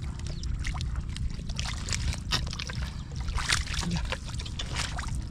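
Shallow water sloshing and splashing as someone wades and gropes by hand through weedy water, with scattered sharp splashes and a steady low rumble underneath.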